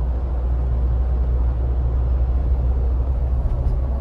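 Jeep Wrangler driving, heard from inside the cabin: a steady low rumble of engine and road noise.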